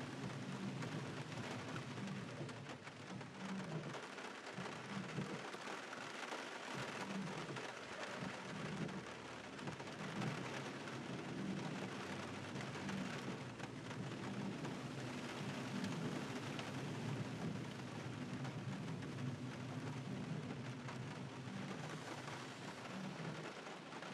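Steady rain hiss mixed with the hiss of car tyres on a wet road, over a low, even rumble.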